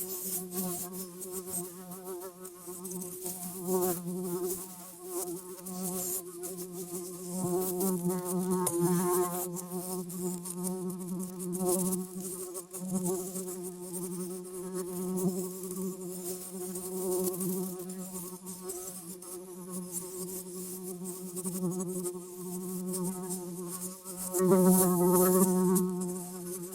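Housefly buzzing close by, a continuous droning buzz that wavers in pitch and loudness as it flies about, swelling loudest near the end.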